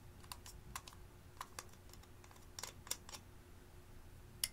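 Thin metal spatula tapping and scraping on a glass dish while crushing pressed eyeshadow: a quiet string of irregular light clicks, the sharpest one near the end.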